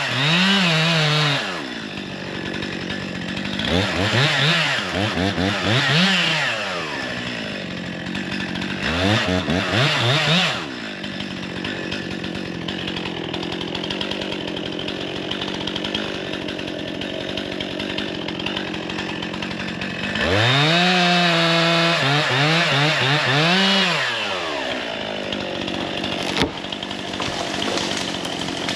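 Two-stroke gas chainsaw revved up in several bursts of one to three seconds, the longest about twenty seconds in, dropping back to a steady idle between them.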